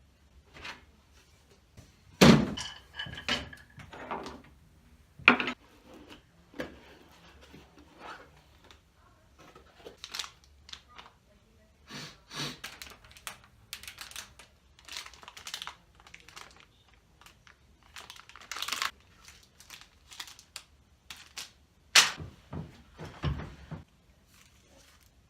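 Irregular knocks, clicks and rustles of computer parts and packaging being handled, with a few loud thunks about two seconds in and again near the end.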